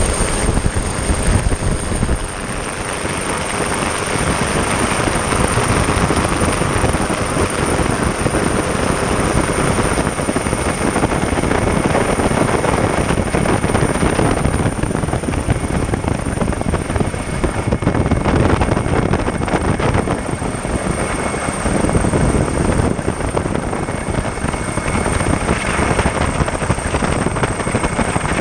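Steady, loud engine and airflow noise heard from aboard a Coast Guard aircraft in flight, with a thin steady high whine on top.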